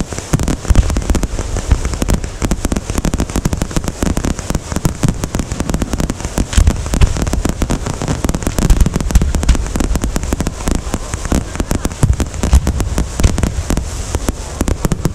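Fireworks display: a dense, continuous crackle of many rapid pops, with deep booms now and then.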